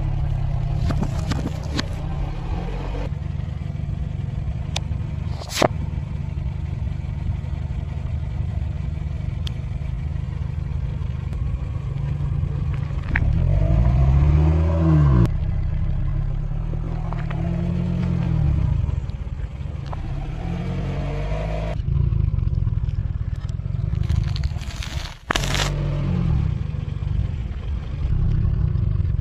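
A car's engine running low while its tyre rolls over items on asphalt, crushing plastic toothpaste tubes and a foil-wrapped chocolate bar with crackling, crunching and a few sharp cracks. The engine revs up and down in the middle, across several short clips cut together.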